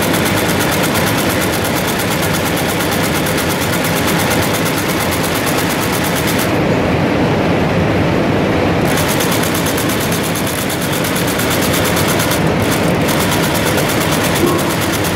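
BQ198 automatic warp knotting machine running, its knotting head clattering in a fast, even rhythm as it ties warp threads one after another. The sharpest top of the clatter drops away for about two seconds midway, then returns.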